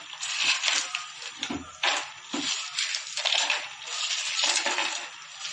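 Ice cubes dropped by hand into a blender jar of juice, clinking and clattering against each other and the jar in quick, irregular bursts.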